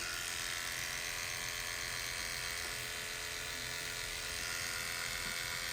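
Electric hair clippers running steadily, a constant whirring buzz that switches on abruptly at the start.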